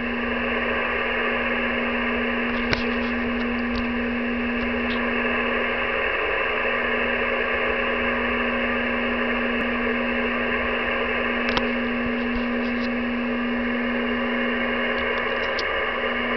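Radio receiver in USB on 48.242 MHz picking up a distant Portuguese TV station's video carrier: a steady low tone over band hiss, fading briefly about six seconds in, with a few static clicks.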